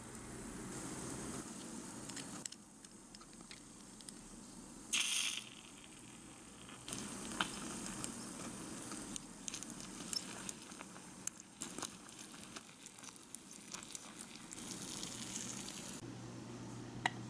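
Small metal spoon stirring ketchup sauce in a miniature saucepan, with scattered light clinks and scrapes against the pan. A brief louder rush of noise comes about five seconds in.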